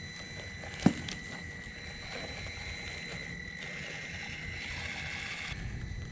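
Traxxas TRX-4M Bronco RC crawler's small electric motor and drivetrain whining steadily as it crawls over loose wooden floorboards, with one sharp knock about a second in.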